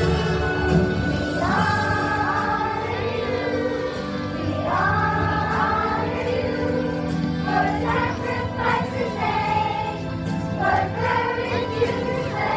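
School choir singing a song with instrumental accompaniment, new sung phrases starting every few seconds over steady held notes.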